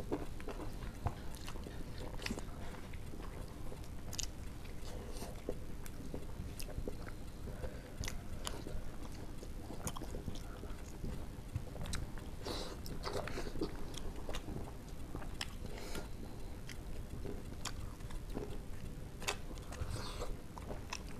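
Close-up chewing and mouth sounds of two people eating rice and egg curry with their hands, with many short wet clicks and smacks scattered through.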